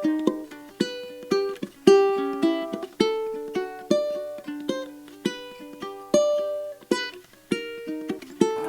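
Background music: a plucked-string instrument, likely ukulele, picking a quick, bright melody of short decaying notes.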